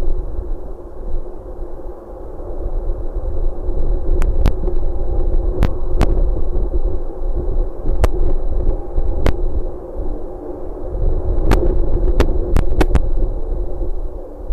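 Wind rumbling on a nest-box webcam microphone, rising and falling in gusts over a steady hum and a faint thin whine. About a dozen sharp clicks come in the second half, several in quick succession near the end.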